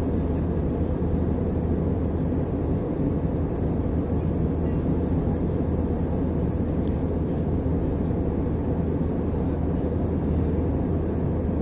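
Cabin noise of an Airbus A319 in flight, heard from a window seat over the wing: a steady low rumble of jet engines and airflow.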